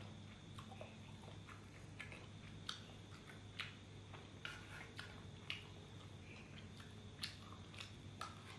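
Quiet chewing of fried rice, with irregular small clicks and scrapes of a metal spoon against a frying pan as more rice is scooped up, over a faint steady hum.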